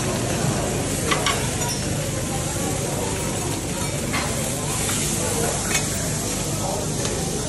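Food sizzling on a hot teppanyaki griddle, with a few sharp clicks of a metal spatula striking the plate.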